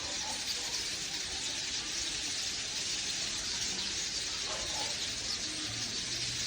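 Many birds chirping together in a dense, steady chorus.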